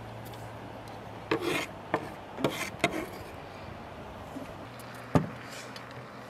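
Kitchen knife scraping chopped pickles across a wooden cutting board in several short strokes, with a few light clicks and one sharp knock about five seconds in.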